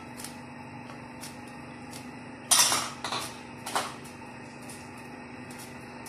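A spoon knocking and scraping against a non-stick frying pan, three times in quick succession about halfway through, while almonds and dried dates roast in ghee. A steady faint hum runs underneath.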